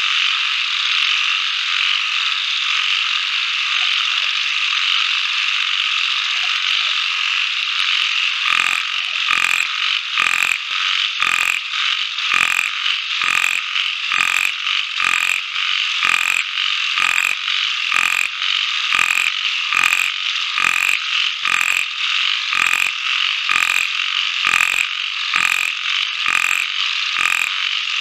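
A dense, steady chorus of calling wildlife. About eight seconds in, a regular pulsing call joins it, beating about twice a second.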